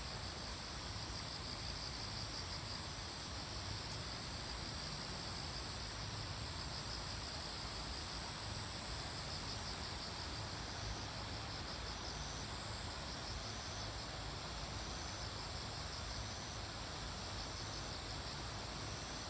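A steady chorus of insects trilling, a high-pitched, finely pulsing drone over a low, even rumble.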